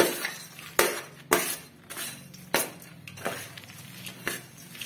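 A metal spoon clinking against a steel bowl as chopped almonds and cashews are tipped out onto a plate, with several sharp separate clinks.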